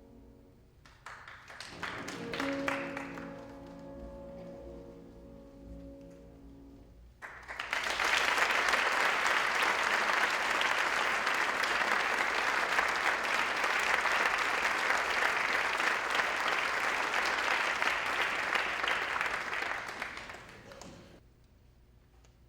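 An instrumental ensemble sounds a closing chord that rings and dies away. About seven seconds in, an audience breaks into applause that lasts roughly thirteen seconds, then fades out.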